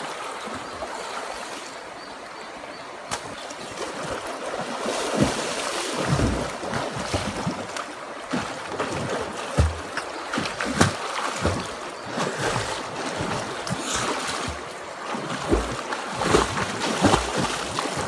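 Water splashing and sloshing irregularly as people wade and swim in a shallow river pool, over the steady rush of flowing river water.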